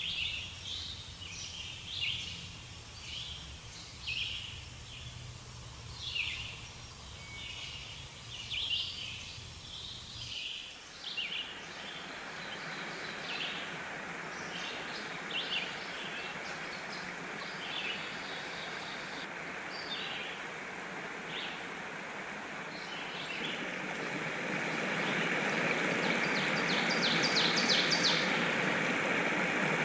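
Birds chirping repeatedly, short chirps about once a second, over a low hum. About ten seconds in the hum gives way to a steady rushing background noise that grows louder near the end.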